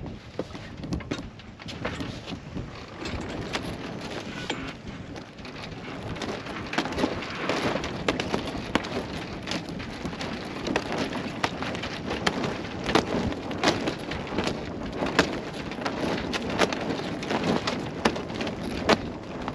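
Steady rushing noise of wind and lapping water around an anchored sailboat, growing louder about a third of the way in, with many scattered sharp clicks and taps.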